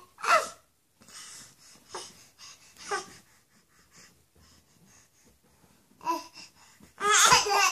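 A baby babbling and making short breathy vocal sounds, one every second or so, with a louder, longer high-pitched vocalization near the end.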